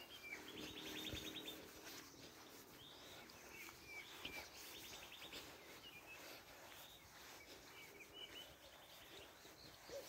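Wild birds singing faintly: a rapid trill of quickly repeated notes twice, once near the start and again around the middle, with short scattered chirps between.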